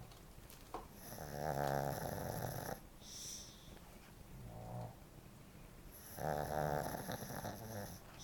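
Shih Tzu snoring in its sleep: two long, loud snores about five seconds apart, each lasting nearly two seconds, with softer, shorter breaths between them.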